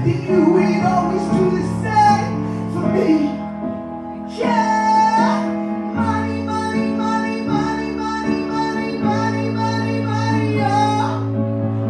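Live band music: held synthesizer chords and a bass line under a high sung vocal line, with a brief drop in level about four seconds in before a new phrase starts.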